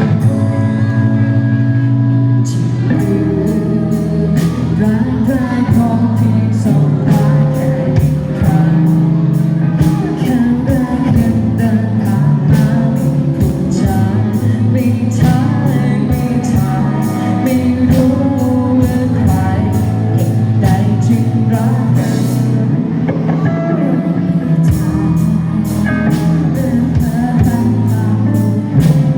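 A band playing a rock song with guitar and singing; a steady drum beat comes in about two and a half seconds in.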